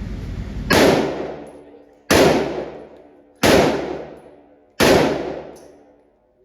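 Four gunshots fired at an even pace, about one and a third seconds apart, each trailing off in a long echo.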